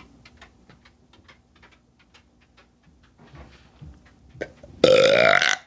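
A woman's loud, deliberate belch, a single one lasting under a second near the end, its pitch bending as it goes. Before it, only faint scattered clicks.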